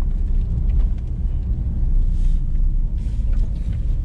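Steady low rumble of a vehicle on the move, heard from on board.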